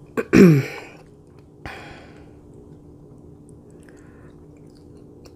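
Eating and mouth sounds over a seafood boil. A click, then a short voiced sound falling in pitch, then a brief wet mouth noise about a second and a half in. Near the end, faint light clicks as a mussel shell is pried open by hand.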